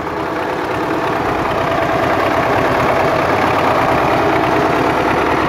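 MTZ Belarus tractor's diesel engine idling steadily.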